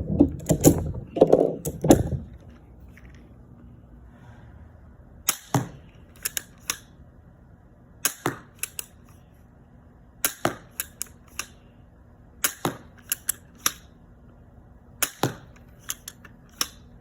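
Steambow AR-6 pistol crossbow being shot in quick succession while speed-loading, about six times. Each shot is a sharp snap followed by a few lighter clicks as it is re-cocked and a bolt is loaded. Loud handling clatter opens the sequence.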